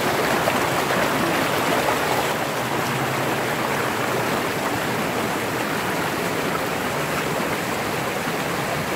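Shallow, rocky mountain stream rushing and cascading over boulders, heard up close as a steady, even rush of water.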